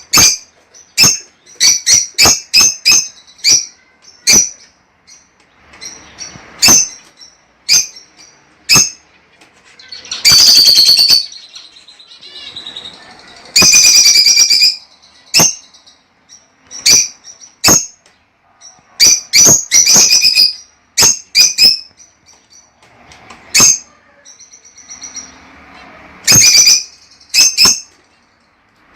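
Lovebirds calling: many short, sharp, high-pitched chirps in quick irregular runs, with two longer bursts of dense chattering about ten and fourteen seconds in.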